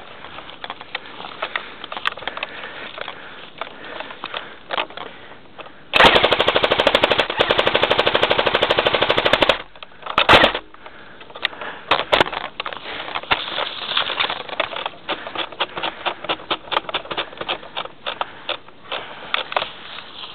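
Airsoft gun firing a long full-auto burst of about three and a half seconds starting about six seconds in, then a second short burst. Scattered single cracks and clicks sound before and after.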